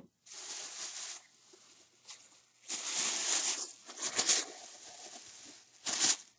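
A plastic bag rustling and crinkling in several bursts as hands dig through it, pulling out DVDs.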